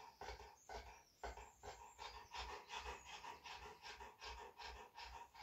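Newfoundland dog panting rapidly and evenly, about four breaths a second, faint. This is the huffing and puffing of first-stage labour.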